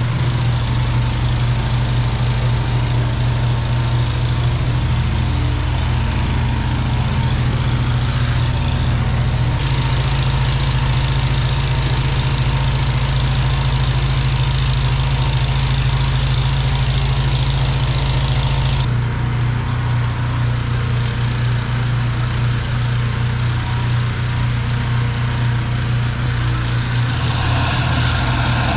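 A motor-driven drain-cleaning machine running steadily at constant speed, with a loud, even low hum. The sound changes abruptly about ten seconds in and again near nineteen seconds.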